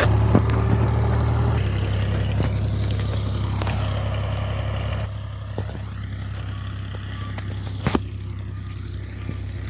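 Fiat 480 tractor's three-cylinder diesel engine running steadily under load as it pulls a seed drill, growing fainter as it moves away. A sharp click about eight seconds in.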